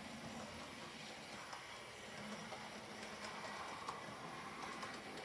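OO gauge model train running on the layout's track: a steady faint motor whir and rolling noise, with a few light clicks of wheels over the rail joints.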